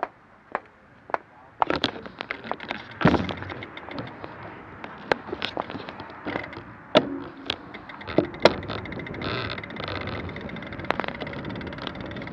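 Irregular sharp clicks and knocks, a few at a time at first, then close together over a bed of scuffing and rustling.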